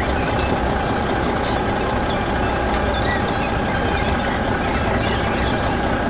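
A machine running steadily, with a faint whine held at a constant pitch.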